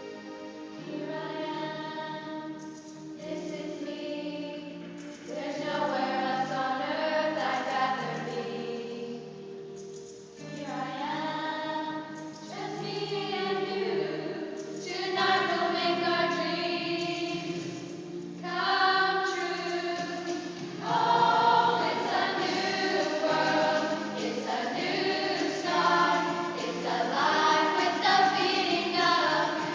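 Choir singing in long held phrases that swell and fade every few seconds.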